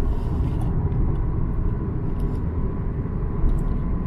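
Steady low rumble of a car heard from inside the cabin, with a faint steady tone and a few faint small clicks.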